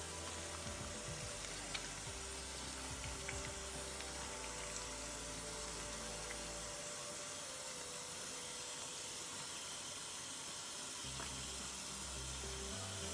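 Steady hiss of a bathroom tap running into the sink.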